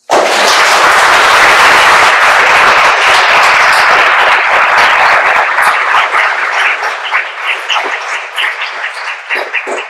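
Audience applauding, starting all at once and loud, then thinning in the last few seconds into scattered individual claps.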